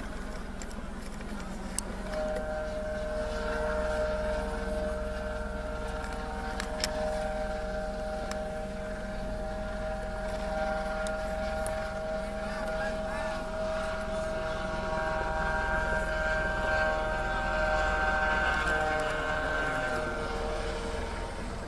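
Sirens held on a steady chord of several tones that comes in about two seconds in and fades out near the end, over a steady low rumble.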